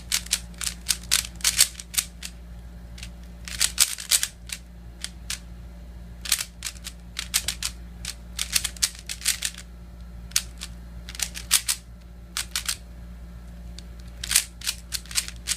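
YJ Yulong 3x3 speedcube being turned during a solve: bursts of quick plastic clicks, one per turn, separated by short pauses. The owner finds the cube a little loose.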